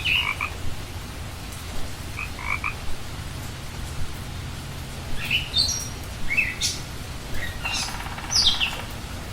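Frogs calling in short, clustered chirps, joined in the second half by higher, falling chirps and a brief buzzy trill, over a steady low rush of water.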